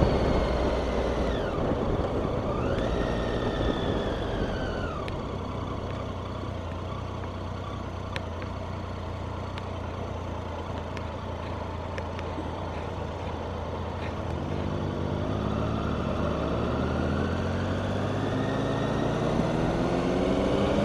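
Motorcycle engine heard from the rider's seat with wind rush: the engine note falls as the bike slows in the first few seconds, settles lower, then climbs steadily in pitch and loudness from about two-thirds of the way in as the bike accelerates round a roundabout.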